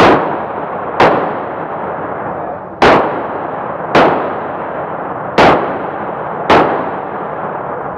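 Six handgun shots fired at an uneven pace, about a second to a second and a half apart, each followed by a long echo in the indoor range.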